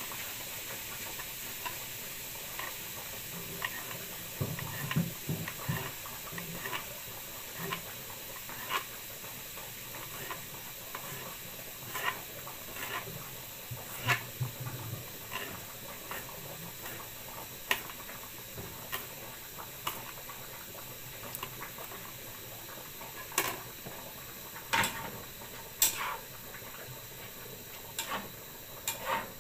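Kitchen knife chopping garlic on a cutting board: irregular sharp knocks, some in quick runs, over a steady hiss in the background.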